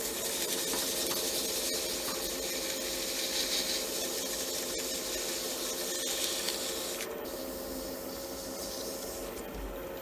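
Wood lathe motor humming steadily at about 870 RPM while a Micro-Mesh abrasive pad rubs against the spinning Alumilite pen blank, giving a steady sanding hiss. The hiss eases about seven seconds in.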